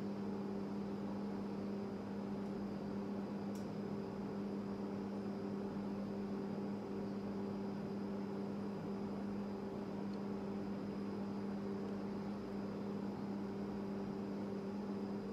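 Steady low electrical hum over a faint hiss, holding a constant pitch throughout.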